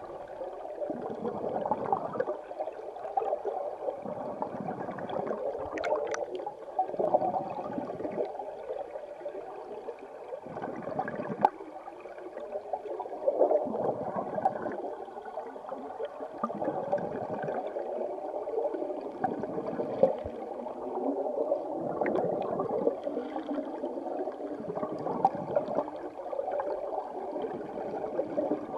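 River current heard underwater: a steady rushing of flowing water, with deeper surges every two to three seconds and a few small clicks.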